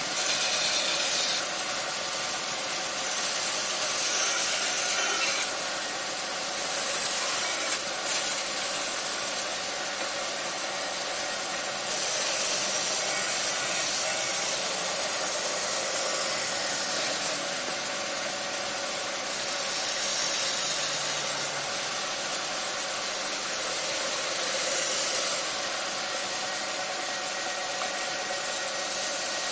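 Vertical band saw running steadily and cutting a wooden furniture-leg blank along a curved line, the cutting sound shifting every few seconds as the board is steered through the blade.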